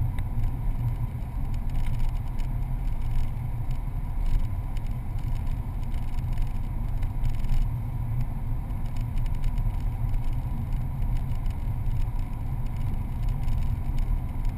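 Steady low rumble of a car driving along a highway, heard from inside the cabin: road and engine noise.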